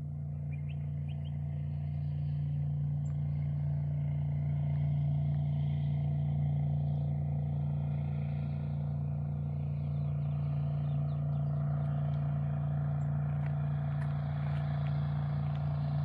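Steady low drone of a distant engine, growing slowly louder.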